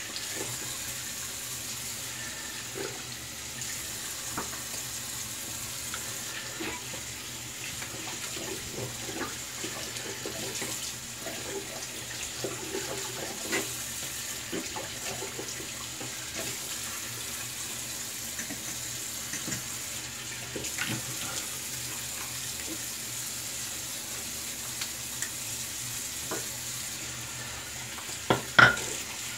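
Bathroom tap running into a sink, with irregular splashing as water is scooped up to rinse shaving lather off the face. Two sharp knocks come near the end.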